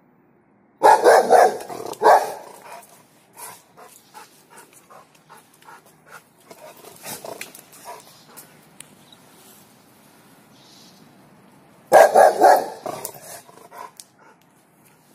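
Rottweiler barking in two bursts of rapid barks, one about a second in and another near the end, aimed at a cat behind the fence that it wants to play with.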